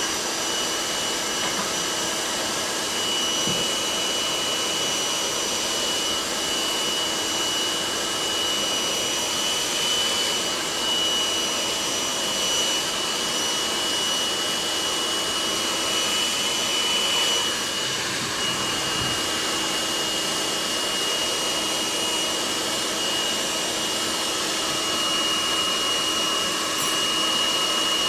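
Hair dryer running steadily, a rush of air with a constant high whine from its motor and fan.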